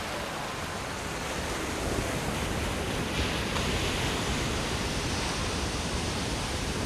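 Surf breaking and washing over rocks, a steady rush of spray that gets a little louder about two seconds in.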